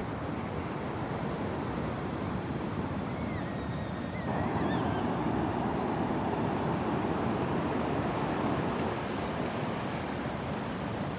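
Ocean surf washing steadily on a beach, mixed with wind. The wash grows a little louder about four seconds in. A faint high bird call sounds briefly between about three and five seconds in.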